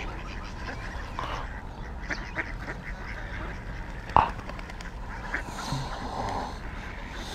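Ducks quacking in short, scattered calls around the feeder, with one sharp click about four seconds in.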